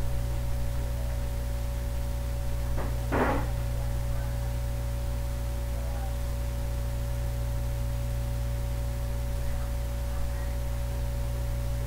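Steady electrical mains hum in an empty room, with one brief faint sound about three seconds in.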